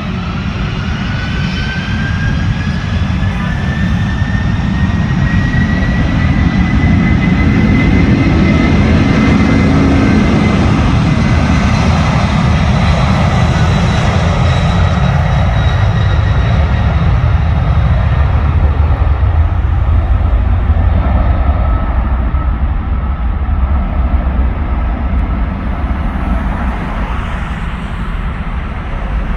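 Cargo jet's engines at takeoff power as it passes and climbs away. A whine rises in pitch over a heavy roar that is loudest about ten seconds in, then gives way to a deep rumble.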